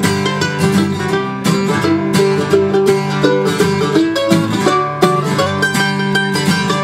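Mandolin and acoustic guitar playing an instrumental break between the verses of an upbeat folk song, with quick picked notes over strummed chords.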